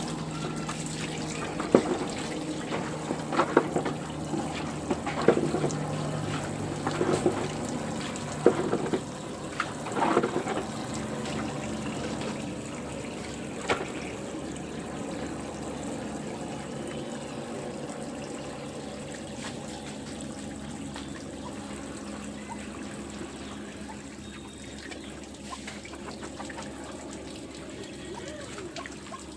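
Water running and trickling steadily, with sharp knocks and clatters through the first half that die away about halfway through.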